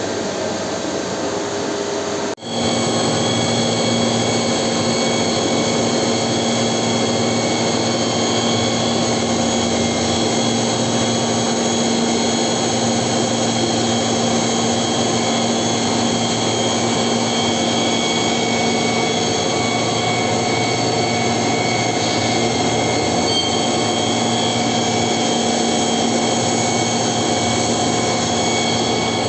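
CNC milling machine running steadily, a machine hum with several held tones. It cuts out for an instant about two seconds in, then carries on a little louder.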